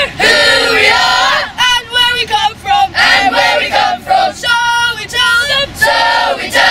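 A group of boys, an under-13 rugby team, loudly chanting their team song together in unison, in sung phrases about a second long with short breaks between them.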